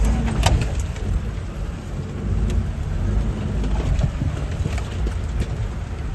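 Four-wheel-drive vehicles crawling slowly over a rocky, wet riverbed: a low engine rumble with occasional sharp knocks and crunches of tyres on stones.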